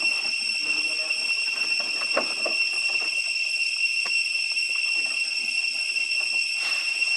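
Cicadas droning in the surrounding forest, a steady high-pitched whine that never breaks, with a few faint taps and scrapes mixed in.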